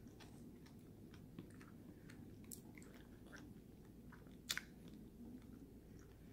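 Faint close chewing of sugared strawberries, with many small wet mouth clicks and one sharper click about four and a half seconds in, over a low steady hum.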